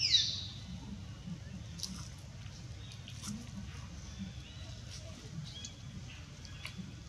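Infant macaque giving a short, high-pitched squeal that falls in pitch right at the start, followed by faint rustling and light clicks in dry leaf litter.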